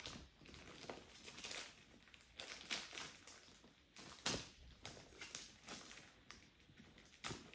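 Small scissors snipping and plastic protective wrap crinkling as it is cut away from a bag handle: a few sharp, irregular clicks among quiet rustling.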